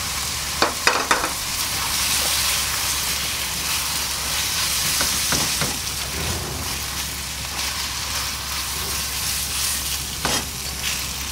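Rice vermicelli stir-frying in a wok: a steady sizzle as the noodles are turned with a spatula, which clacks against the pan a few times.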